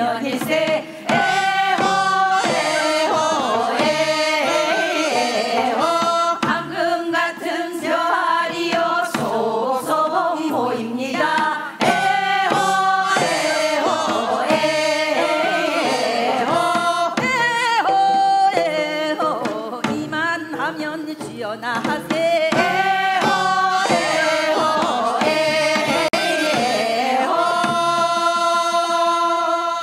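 Singers performing a Gangwon-do Korean folk work song over a steady beat. Near the end they hold a long final note, which cuts off.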